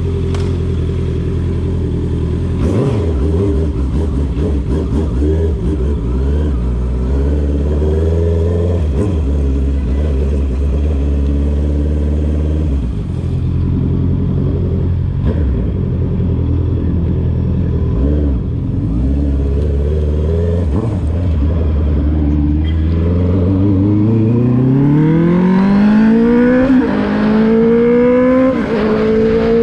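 Honda CB650R's inline-four engine through a straight-through full exhaust with the dB killer removed. It runs at steady, low revs while riding, then revs climb hard under acceleration near the end, with two brief dips at upshifts.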